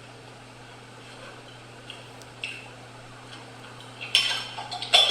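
A low steady hum with a few faint clicks, then a burst of clattering and clinking of hard objects near the end.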